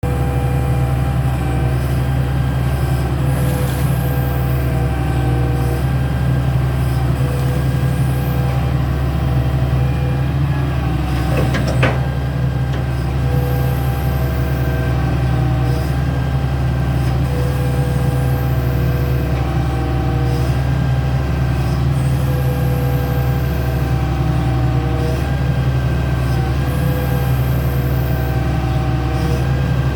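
Hitachi excavator's diesel engine running steadily while digging, with a whine that comes and goes every few seconds and a single knock about twelve seconds in.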